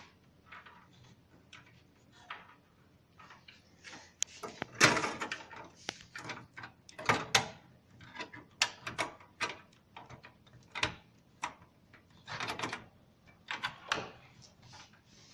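Computer parts being handled and fitted into a PC case: irregular clicks, knocks and short rustles, with a few louder clacks scattered through.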